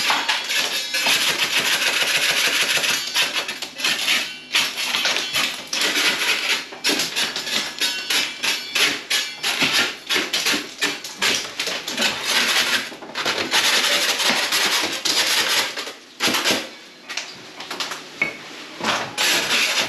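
Hand scraper chipping and scraping loose, water-damaged plaster off a ceiling: rapid scratchy strokes and knocks as the flaking plaster breaks away, with a brief lull about two-thirds of the way through.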